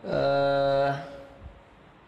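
A man's voice holding one even-pitched sound, like a drawn-out 'ehm', for about a second, then stopping.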